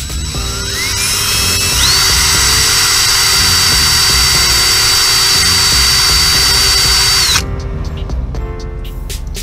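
Cordless drill spinning up with a rising whine, then running steadily while drilling into the bearing cap of a BMW E46 driveshaft U-joint to make a hole for a grease fitting. After about seven seconds it cuts off with a short drop in pitch.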